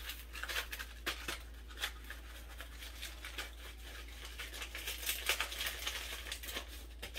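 A paper packet of Lipton onion soup mix crinkling as the dry mix is shaken out of it onto ground beef in a plastic bowl: irregular light crackles that grow busier in the second half.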